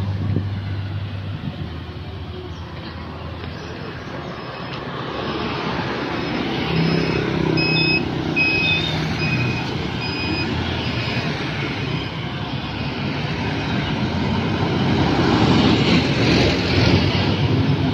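Road traffic passing: motorcycles and trucks go by, and the engine noise builds to its loudest near the end as a large dump truck passes close. A string of short high beeps, about one a second, sounds in the middle.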